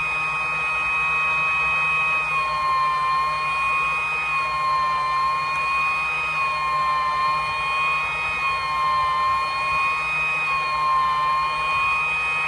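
Hot-air rework equipment running while a CPU is heated for desoldering: a steady whine with two high tones that waver slightly in pitch, over a hiss of blowing air.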